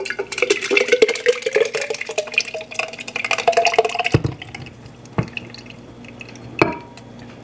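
Thick blended ginger and water pouring from a glass blender jar into a glass pitcher, gurgling and splashing with a tone that slowly rises as the pitcher fills. The pour dies away about four seconds in, followed by three sharp glass knocks as the jar is tapped against the pitcher to drain it.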